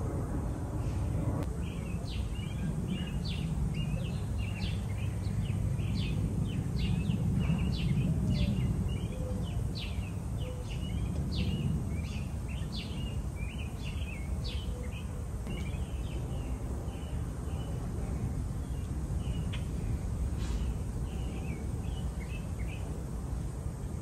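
Small backyard birds chirping busily, a quick run of short, high chirps that thins out near the end, over a steady low background rumble.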